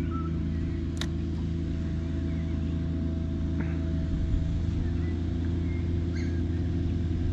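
Steady low motor hum with even overtones, and a few faint bird chirps.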